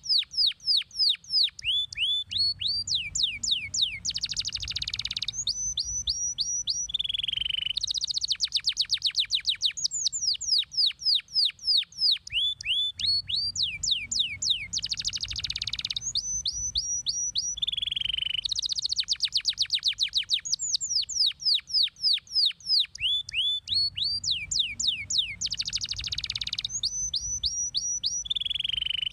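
Domestic canary singing a long, fast song: rapid trills of steeply falling whistled notes alternating with buzzy rolls. The same sequence of phrases repeats about every ten seconds, as a looped masteran recording for tutoring other canaries.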